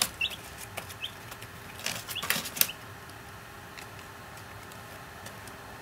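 Ten-day-old chicks peeping, a few short high peeps in the first half, mixed with several light clicks from the chicks moving about the brooder box.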